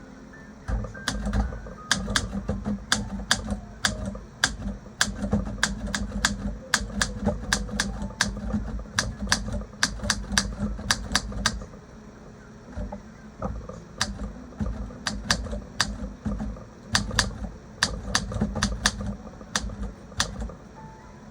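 Olympia SM3 manual typewriter being typed on: type bars striking in quick, uneven runs of keystrokes, with a pause of about two seconds near the middle.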